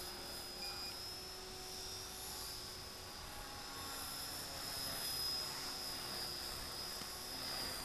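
Electric RC helicopter in flight: a faint, steady high-pitched whine from its motor and rotor, wavering slightly in pitch.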